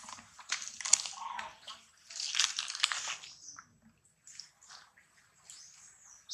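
Dry leaf litter crackling and rustling in irregular bursts as monkeys shift and scramble on it. The bursts are loudest about a second in and again from about two to three and a half seconds, then thin out to scattered crackles.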